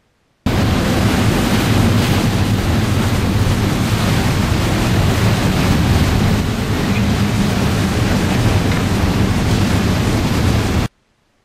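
Fast run over choppy water in a motorboat, with jet skis running alongside: loud wind rush on the microphone and churning wake and spray over a low engine drone. It cuts in suddenly about half a second in and stops abruptly near the end.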